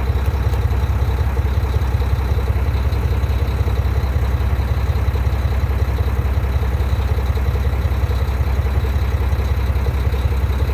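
Truck engine idling steadily, a low, even, rapidly pulsing rumble.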